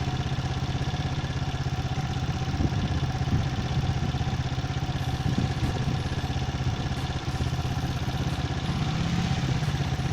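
A 100 cc motorcycle's small single-cylinder engine running steadily at an even speed.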